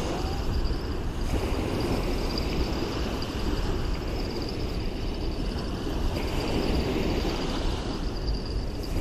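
Steady wind noise on the microphone and water washing against the shore, with a faint steady high tone over it.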